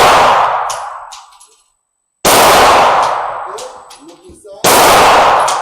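9mm handgun fired in slow single shots, two in a row about two and a half seconds apart, each a sharp report with a long echoing decay; the tail of a shot fired just before is still dying away at the start.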